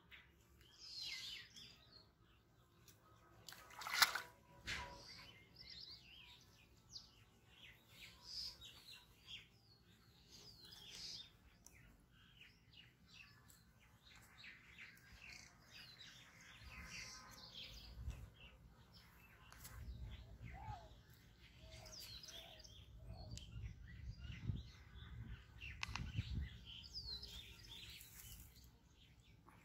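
Small birds chirping and calling on and off throughout, faint, with one sharp knock about four seconds in and low rumbling in the second half.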